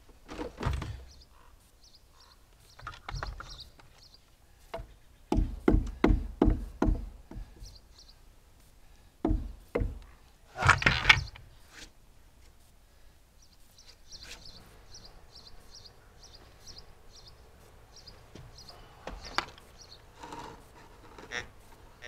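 Knocks and thumps of wood on wood as a heavy cedar cant is handled. There is a quick run of five or six knocks about five to seven seconds in, and the loudest knock comes about eleven seconds in.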